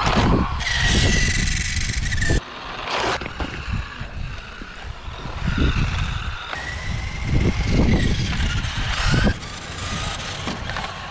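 Toy radio-control car's small electric motor whining steadily as it drives over a concrete driveway, over a heavy low rumble. The sound breaks off abruptly twice.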